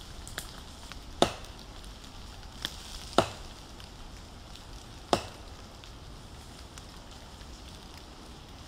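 Three sharp thwacks about two seconds apart, with a couple of fainter ticks between them.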